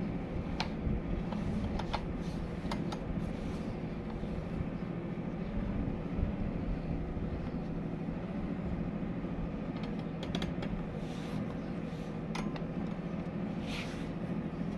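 Small 220 V electric fan heater running: a steady fan whir and motor hum, with a few light clicks and taps as its plastic casing is handled.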